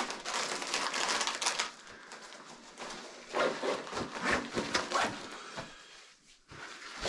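Rustling and handling noises in irregular bursts, as gear and clothing are moved about close to the microphone.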